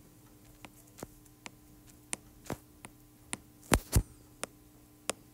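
Stylus tip tapping on a tablet's glass screen as dots are drawn: about a dozen short, sharp clicks at uneven intervals, with two louder taps close together about two-thirds of the way through. A faint steady electrical hum underneath.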